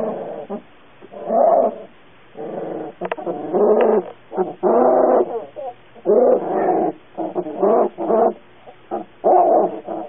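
Young puppies whining and crying: a string of about eight high, pitched cries, each half a second to a second long, some bending up and down in pitch.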